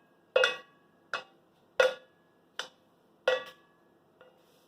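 A spoon repeatedly clinking against a pot or dish while lemon filling is spooned out, about six sharp strikes a little under a second apart, each ringing briefly at the same pitch.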